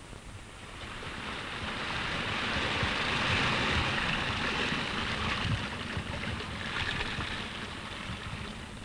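Surf breaking on a sandy beach: an even rushing wash of waves that swells over the first few seconds and then slowly eases.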